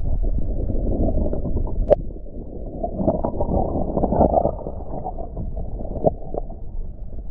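Shallow stream water running and gurgling, with low wind rumble on the microphone and a few sharp knocks, one about two seconds in and two around six seconds in.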